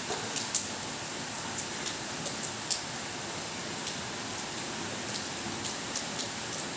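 Rain pouring steadily, a continuous hiss with scattered sharp drips and drop impacts.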